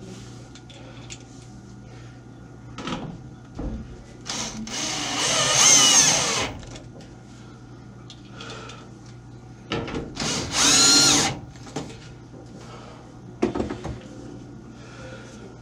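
Power drill driving screws in two runs, each a second or two long, its motor pitch rising and falling, with a few short knocks between.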